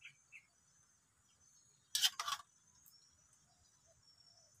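Quiet rural ambience: a steady faint high insect drone with a few faint bird chirps, broken about two seconds in by two short, sharp rustles.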